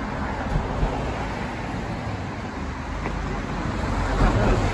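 Street traffic noise: a steady low rumble and hiss of passing vehicles, swelling near the end as one goes by close.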